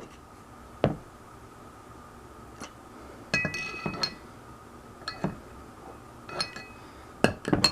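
Scattered light clinks and knocks of a steel pistol barrel and small hard cleaning items being handled and set down, a few with a short ringing tone; the busiest stretch comes a little after the middle.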